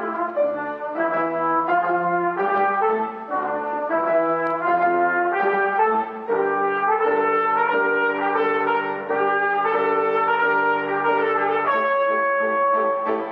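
Trumpet playing a melody with piano accompaniment: shorter notes at first, then longer held notes from about halfway through.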